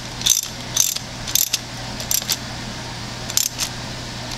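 Hand ratchet wrench clicking in short bursts, about two a second, as bolts are run back into the ignition coil's mounting bracket. It pauses, then clicks again a little after three seconds in.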